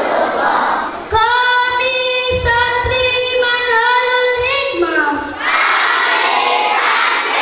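A girl's voice through a microphone holds one long, steady sung note for about four seconds, sliding down at the end. Before and after it, a crowd of children shout together.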